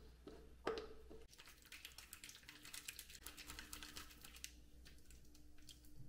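A pump-bottle dispenser of foaming face cleanser pressed once, a sharp click, then about three seconds of fine, rapid wet crackling as the gel is worked into a lather between the hands.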